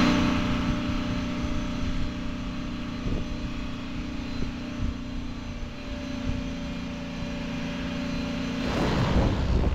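C-130 Hercules turboprop engines running steadily on the ground, a constant hum with a high whine above it. Near the end a louder rushing noise takes over.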